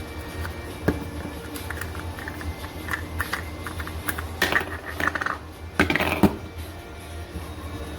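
Light clinks and clatters of glass and plastic kitchenware being handled, most likely the glass carafe and its parts, over a steady low hum. The clatters bunch together twice, about four and a half and six seconds in.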